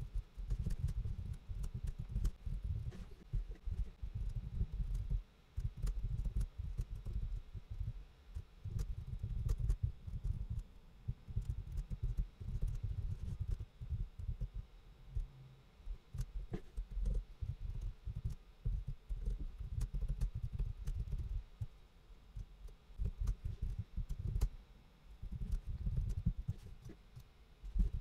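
Computer keyboard being typed on in irregular runs of keystrokes, with short pauses between runs; the key presses come through mostly as dull low thuds with faint clicks on top.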